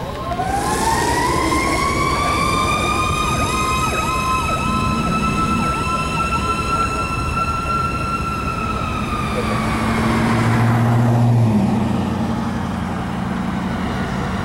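Fire engine sirens on an emergency response: a siren winds up from the start to a high steady wail and slowly falls away after about nine seconds, with a second, faster up-and-down siren underneath. A low air horn blast comes near the end and is the loudest moment.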